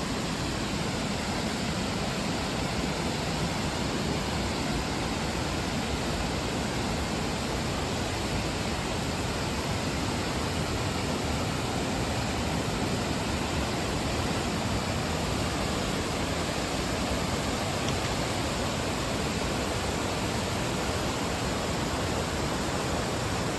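Steady rushing of a waterfall running high after a week of rain.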